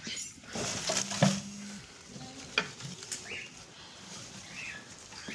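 Goats tearing and chewing sapodilla (chikoo) leaves: irregular rustling and crunching crackles, with a sharp snap about a second in.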